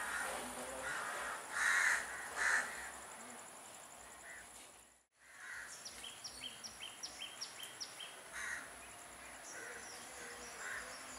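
Outdoor ambience with crows cawing, two loud caws about two seconds in. Later a small bird gives a quick run of short, high chirps, over a steady high insect drone.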